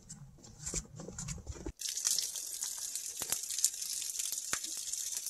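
Low rumble with a few light knocks that cuts off abruptly under two seconds in. Then a steady hiss of running, splashing water, as from a spring's outflow, with scattered small clicks and knocks.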